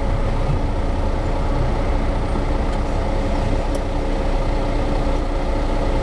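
Semi truck's engine and road noise heard inside the cab: a steady low drone with a faint even whine above it.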